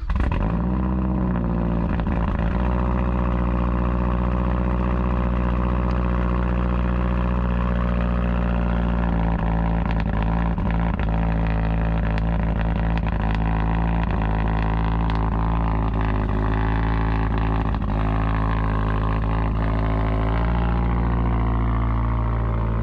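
A 2012 Mazdaspeed3's turbocharged 2.3-litre four-cylinder, fitted with a full 3-inch exhaust, idling just after starting. The idle wavers for the first couple of seconds, then settles into a steady note that steps slightly near the end.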